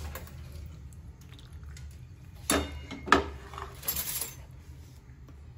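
Steel slotted spoon clinking and scraping against a metal pan and a plate as pasta is served, with sharp clinks about two and a half and three seconds in, over a low steady hum.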